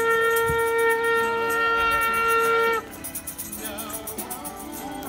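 Ram's-horn shofar sounding one long, steady blast that cuts off abruptly about three seconds in. After it come quieter, wavering voices and a steady high rattling of a shaken rattle.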